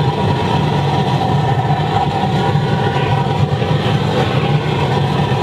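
Large waste-oil burner firing into a steel drum furnace, melting scrap aluminium: a loud, steady rush of flame and forced air with a low, flickering drone and a faint higher tone over it.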